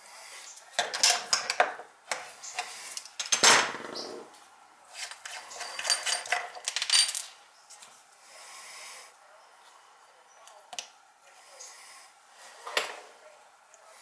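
Small metal parts of a two-handle Delta kitchen faucet clinking and clattering against each other as they are handled and taken apart, in irregular bursts, the loudest about three and a half seconds in.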